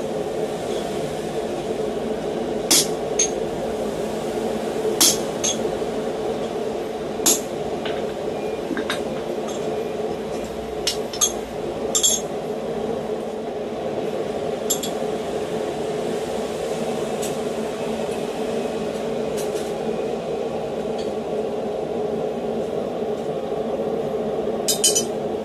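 Hammer striking a chisel to cut a small piece of flat steel bar on an anvil: sharp metallic clinks at irregular intervals of a second or a few seconds, with a quick run of strikes near the end. A steady low hum runs underneath and cuts off at the very end.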